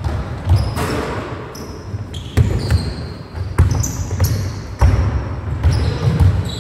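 A basketball bouncing on a sports-hall floor in irregular thuds that echo in the large hall, with short high squeaks of trainers on the court.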